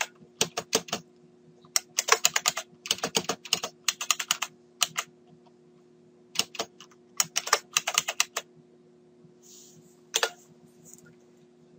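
Typing on a computer keyboard: quick runs of keystrokes with short pauses between them, then one lone keystroke about ten seconds in, over a faint steady hum.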